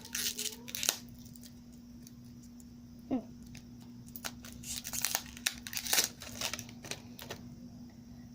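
Plastic toy packaging crinkling and tearing as a small surprise-toy package is opened, in clusters of crackles during the first second and again from about four to seven seconds in, over a faint steady hum.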